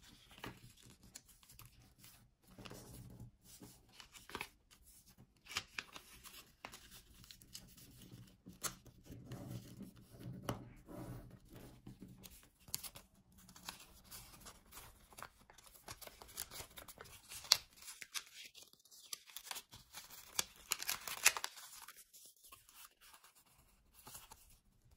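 Sheet of origami paper being folded by hand: irregular rustling and crinkling as folds are pressed and creased, with a few sharper crackles in the second half.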